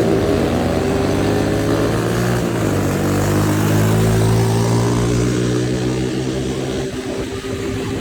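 Small off-road vehicle engines running hard. The engine pitch drops about two and a half seconds in, climbs back and holds, then shifts near the end.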